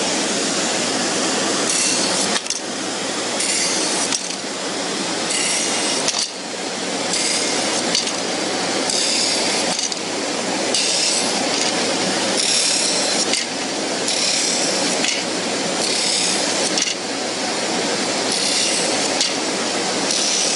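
Power sander running steadily while small pieces are pressed against the abrasive one after another to round over their edges. Each contact adds a brief, higher-pitched sanding rasp, about every second and a half.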